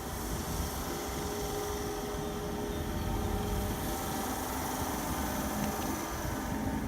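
A train running through, a steady rumble and rush with faint steady tones over it.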